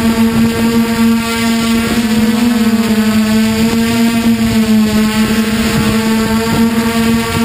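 DJI Flame Wheel F450 quadcopter's brushless motors and propellers in flight, a loud steady buzzing hum whose pitch wavers slightly as the throttle changes.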